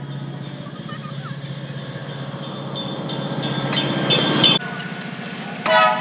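Amtrak diesel passenger train running at the station with a steady low engine rumble; a louder rushing noise builds and cuts off suddenly about two-thirds of the way in, and a short blast of the locomotive's horn starts near the end.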